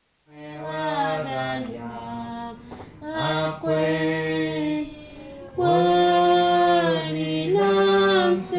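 Voices singing a hymn unaccompanied, in phrases of long held notes.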